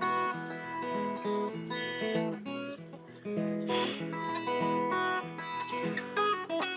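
Acoustic guitar playing an instrumental passage: a run of picked notes, with a strummed chord about four seconds in and a few quick strums near the end.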